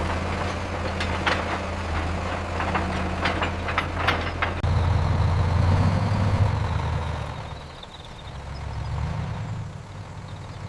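A heavy engine runs with a steady low hum, and light metallic clinks come in over the first few seconds. A little under halfway through, the engine grows louder for a few seconds, then eases off, swelling briefly once more near the end.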